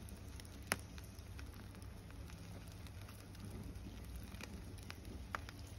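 Bed of wood-fire coals crackling quietly with scattered ticks and a few sharp pops, the loudest under a second in and another near the end.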